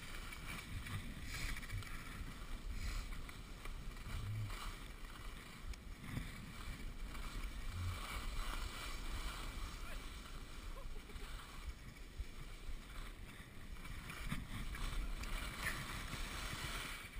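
Skis sliding and scraping over hard, tracked snow during a descent, a steady hiss that swells and eases with the turns, with wind rumbling on the head-mounted action camera's microphone.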